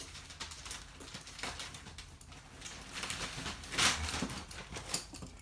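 Small dog's claws tapping and scrabbling on a hard floor, a scatter of light clicks, with one louder rustling scrape about four seconds in.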